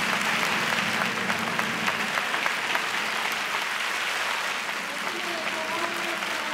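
Audience applauding steadily, a dense crackle of many hands clapping, with a few voices faintly heard through it near the end.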